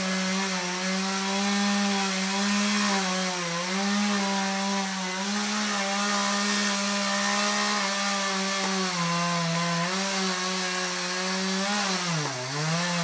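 Two-stroke chainsaw running under load as it cuts through a tree trunk. Its pitch sags briefly every few seconds as the chain bites, and dips lower twice near the end.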